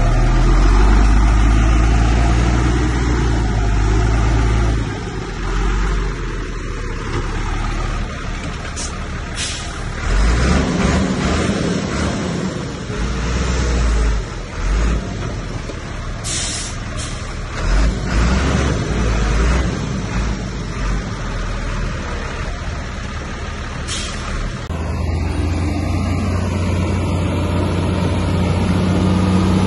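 Heavy diesel earthmoving machinery running and working under changing load, its low engine drone rising and falling, with several brief sharp bursts along the way; near the end the engine settles into a steadier drone.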